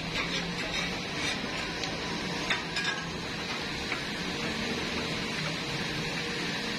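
Two wooden paddles mixing marinated raw chicken pieces in a large steel pot, with a few sharp knocks of wood against the pot in the first three seconds, over a steady background hum.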